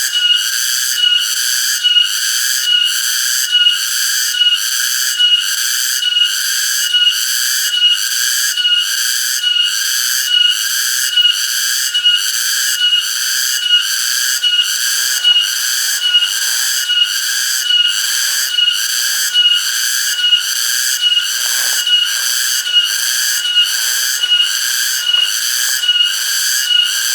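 Cicadas calling in chorus: a loud, steady, high whine that pulses evenly a little more than once a second.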